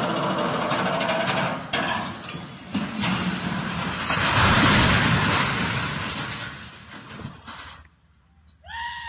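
A steel tower crane toppling over: clattering and knocking of the lattice structure, then a long crash and rumble as it hits the ground. The noise is loudest about halfway through and dies away near the end.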